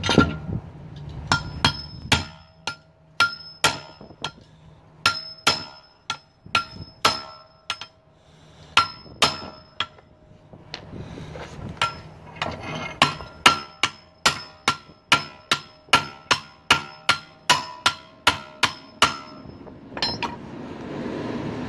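Hammer striking a socket held against a stuck U-joint bearing cap on an aluminum driveshaft yoke, driving the cap out; each blow a sharp metallic clank that rings on. The blows come in runs of about two to three a second, and the cap is pretty tough to move. They stop near the end, leaving a steady rushing noise.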